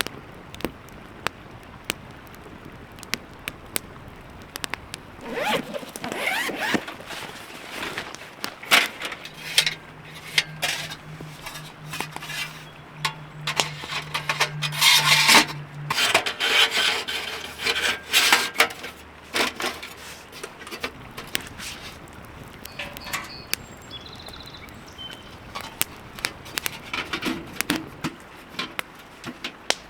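Scraping and rubbing with many scattered clicks and knocks as wood stove parts are handled and fitted in a hot tent. A low steady hum comes in about ten seconds in and lasts several seconds.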